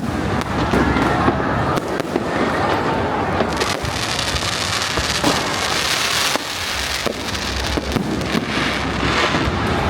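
Fireworks display: repeated sharp bangs of aerial shells going off, with a dense hiss filling in from about three and a half to six seconds in.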